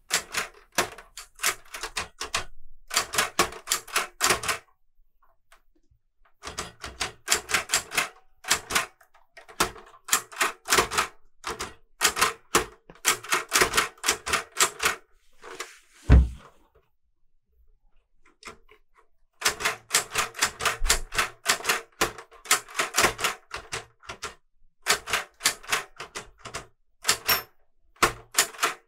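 Keys of a Clover 810S manual typebar typewriter struck in quick runs of sharp clacks, broken by pauses of a second or two. About halfway through comes a single heavy thump, the loudest sound in the stretch.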